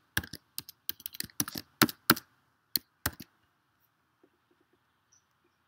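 Computer keyboard typing: a quick, uneven run of key clicks for about three seconds, then it stops.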